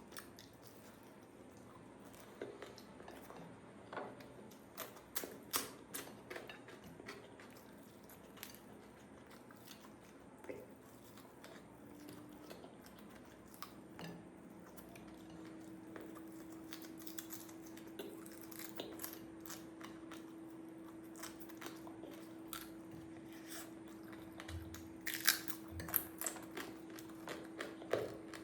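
Close-up eating sounds: chewing and mouth clicks with scattered crunches and sharp crackles. A steady hum comes in about twelve seconds in.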